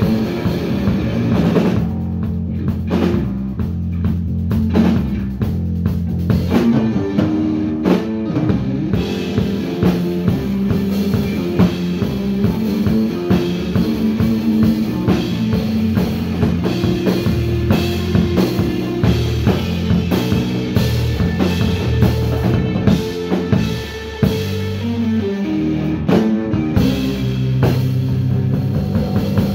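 Live rock band playing loud: electric guitar, electric bass and a drum kit.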